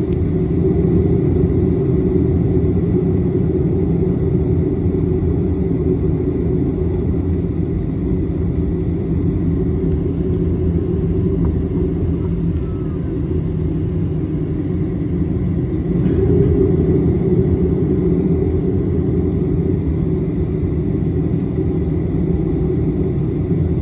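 Jet airliner's engines at taxi power, heard from inside the passenger cabin as a steady low rumble with a faint high whine. It swells slightly about sixteen seconds in.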